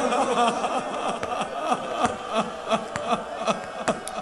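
A crowd of mourners weeping aloud: many short, overlapping falling sobs and cries, over a faint steady tone.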